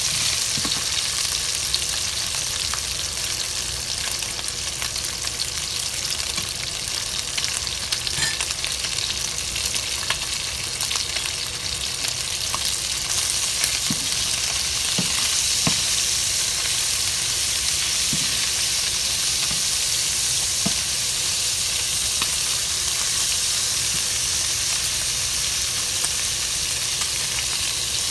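Strips of meat sizzling steadily in a hot frying pan, with a wooden spoon stirring them and knocking against the pan now and then.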